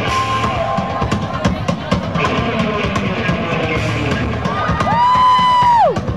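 Live blues band playing, with a drum kit keeping a steady beat under electric guitar. Near the end a lead line bends up into a long held high note, then slides down and cuts off.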